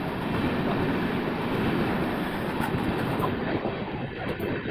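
Indian Railways passenger trains running side by side: steady rumble and wheel clatter on the rails as the coaches of a train on the next track pass close by.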